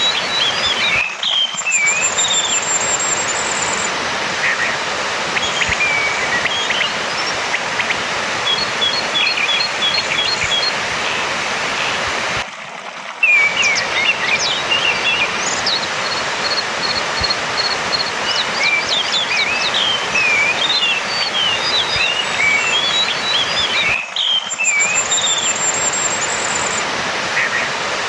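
Orange-headed thrush song: varied whistled phrases, quick chirps and short trills over a steady hiss, played as a lure for a thrush that has stopped singing. The sound drops out briefly three times, about every eleven and a half seconds, as the looped recording restarts.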